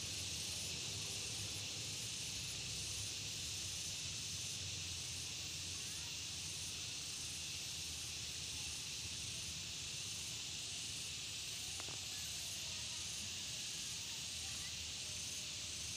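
Insect chorus: a steady high-pitched hiss with a fainter pulsing layer above it, about two pulses a second.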